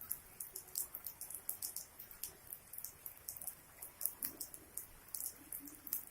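Rain falling, drops striking surfaces in irregular, crisp ticks several times a second over a faint hiss.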